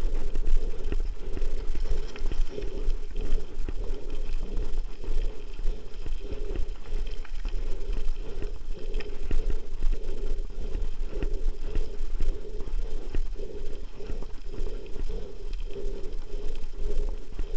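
Mountain bike riding over a gravel track, heard from a bike-mounted camera: a constant rapid rattling and clatter of tyres on loose stones and the shaking bike and mount, under a steady low rumble.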